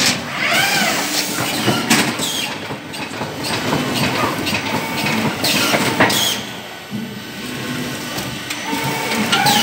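CPS CL86 case packer running while packing net bags of onions: steady mechanical clatter with several sharp knocks, and a couple of brief squeals that rise and fall in pitch near the start and near the end.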